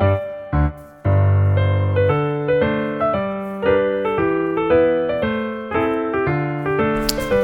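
Background piano music: a light melody of single struck notes that ring and fade. A few sharp clicks come near the end.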